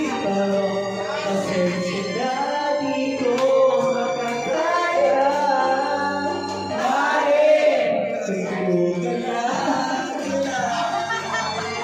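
A song sung over backing music, with long held vocal notes.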